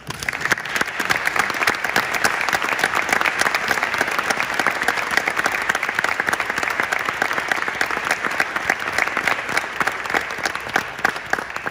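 Audience applauding, a dense steady clapping that starts suddenly and dies away near the end.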